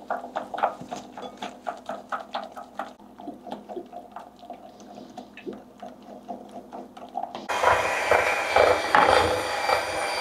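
Wooden spoon stirring homemade mayonnaise in a glass bowl, tapping and scraping against the glass about four times a second. About seven seconds in, an electric hand mixer starts, its motor whirring loudly as the beaters whip the mayonnaise.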